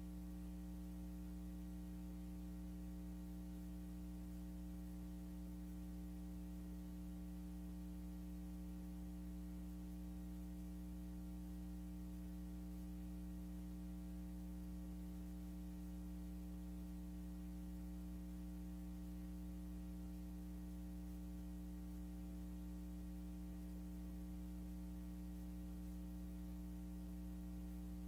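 Steady electrical mains hum with a faint hiss, unchanging throughout; the track carries no other sound.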